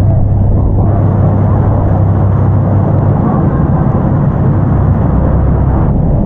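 Loud, steady rushing roar of the falls and wind on the microphone, over a tour boat's engine that gives a low steady hum, strongest in the first few seconds.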